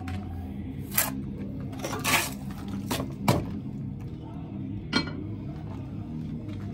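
Steel mason's trowel clinking and scraping against concrete block and mortar, about five sharp strikes a second or so apart, over a steady low hum.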